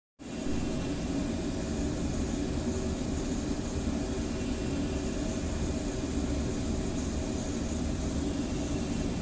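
Steady drone of electric commuter trains standing idle at a station platform: a low hum with a faint high whine over it.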